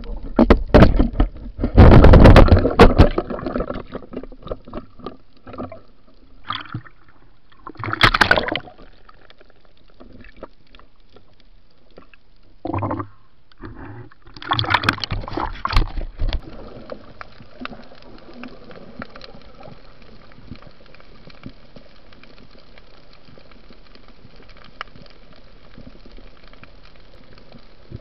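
Water splashing and sloshing against a waterproof camera housing in loud irregular bursts, strongest about two, eight and fifteen seconds in. After that comes a steady faint hiss with small ticks as the camera stays underwater.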